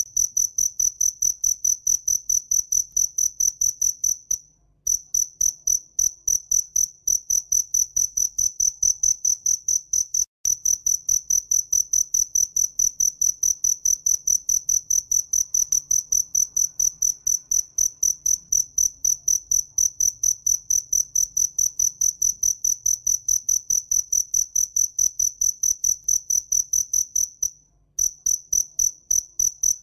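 Cricket singing close by: a loud, high chirp repeated in rapid, even pulses. It stops briefly about four and a half seconds in and again near the end, then starts up again.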